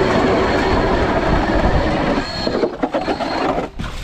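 StrikeMaster lithium-battery electric ice auger drilling through ice: a steady motor whine over the grinding of the bit cutting ice. The sound breaks up about two seconds in and stops shortly before the end as the drilling finishes.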